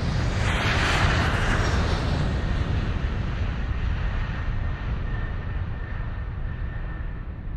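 Small electric R/C airplane flying past: a rushing swell about a second in that slowly fades, with a faint thin motor tone, over low wind rumble on the microphone.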